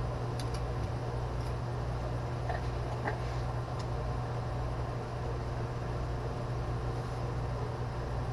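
A steady low hum with an even hiss over it, and a few faint light clicks about half a second in and around two to four seconds in.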